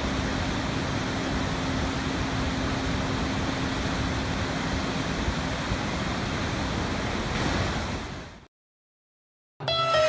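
A large waterfall's steady rushing water noise, fading out about eight seconds in and giving way to a second of silence.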